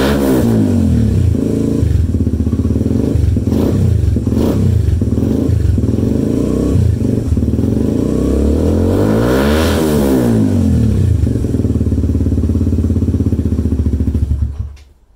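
Suzuki Van Van's single-cylinder four-stroke engine running through a Black Widow full exhaust system with a stainless round end can and the baffle removed. It idles between several throttle blips, with the biggest rev about ten seconds in, and the sound dies away near the end.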